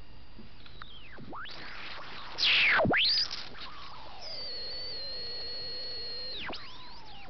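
Homemade Tesla coil and its transistor driver whistling and squealing. The pitch glides down and up, with a loud falling-then-rising squeal about two and a half seconds in, then a steady high whistle for about two seconds.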